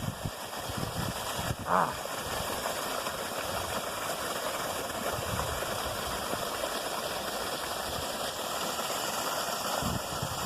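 Steady rush of creek water pouring over a small fall, with a short, high pitched sound about two seconds in.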